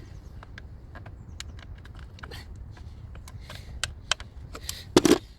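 Light, irregular clicks and taps from plastic engine-bay parts being handled: the car's crankcase breather pipe being worked on by hand. A louder, harsher rustling burst comes about five seconds in.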